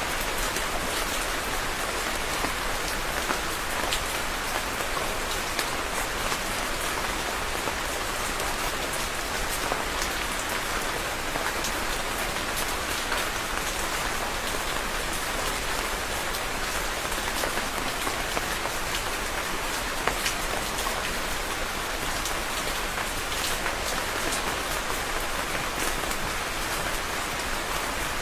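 Steady rain falling, a constant even hiss with scattered individual drop ticks.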